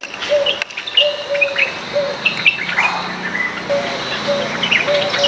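Several backyard birds calling together: many short high chirps and twitters, mixed with short, lower, clipped notes repeated every second or so.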